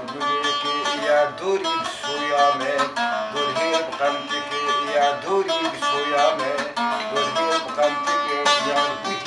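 A saz, a long-necked lute, plucked in a quick melody of many short notes that runs on without a break.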